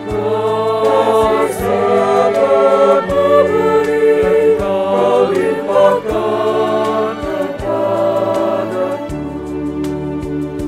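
Mixed choir of men and women singing a slow Christian worship song over instrumental accompaniment; the voices die away about nine seconds in, leaving the accompaniment.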